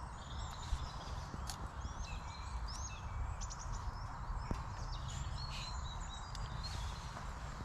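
Small songbirds chirping and whistling in short, quick notes that glide up and down, heard over a steady low rumble and hiss.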